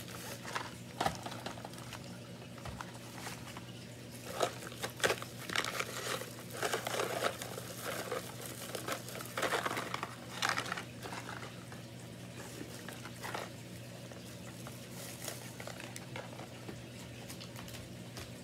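Clear plastic treat bag and small candy packets crinkling and rustling as they are handled, in irregular bursts with light clicks, over a steady low hum.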